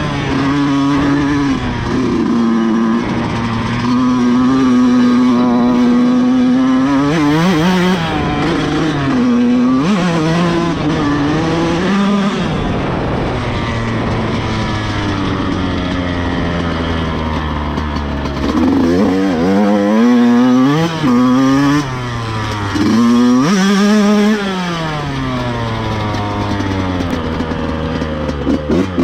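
Yamaha YZ125X's 125 cc two-stroke single-cylinder engine running hard, held at a steady pitch for several seconds and then revving up and down over and over, with quick rises and drops in pitch in the second half.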